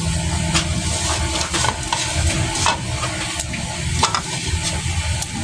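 Kitchen handling sounds over a steady hiss: scattered light clicks and taps as shredded banana heart is dropped by hand from a clay pot into coconut milk in a metal wok.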